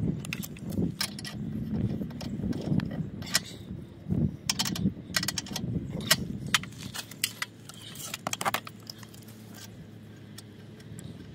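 Irregular small metallic clicks and clinks of a brass propane hose fitting being handled and threaded onto a camper's gas line inlet, thinning out after about eight seconds.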